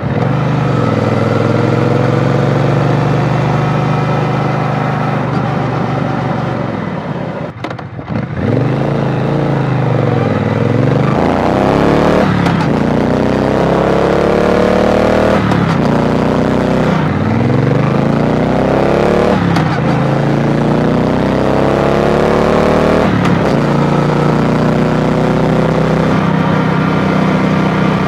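Triumph Bonneville T120's parallel-twin engine, heard from the rider's seat while riding. It runs steadily, eases off briefly about eight seconds in, then pulls through the gears, its pitch rising and dropping back at each of several upshifts, and settles to a steady cruise near the end.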